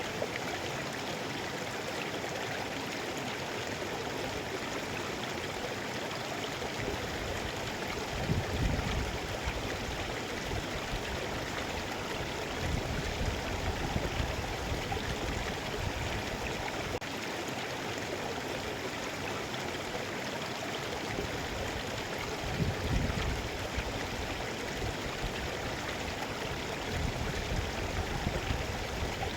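Mountain river flowing over rocks: a steady rush of water, with a few brief, deeper low swells.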